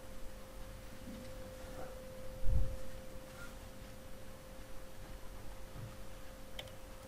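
Steady faint single-pitch electronic whine, with a soft low thump about two and a half seconds in.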